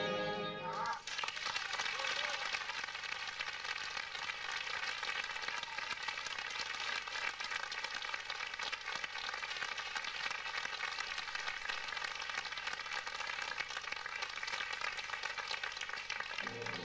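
Theatre audience applauding steadily, a dense crackle of many hands clapping. The orchestral music cuts off about a second in.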